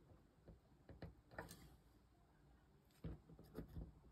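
Faint clicks and small scrapes of a wire lead being pushed into the contacts of a solderless breadboard: a few scattered ticks about a second in, and another small group near the end.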